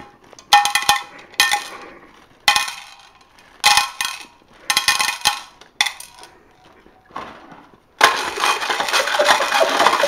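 Small hard pieces dropped by the handful into a metal stockpot, each drop a short ringing clatter against the pot, about one a second. About eight seconds in it turns into a continuous clatter as the contents are stirred.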